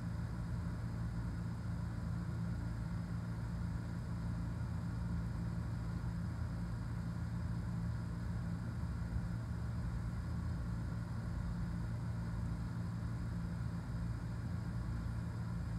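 Steady low machine hum running evenly, with nothing else standing out.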